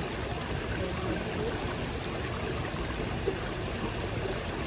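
Steady rushing noise with faint distant voices.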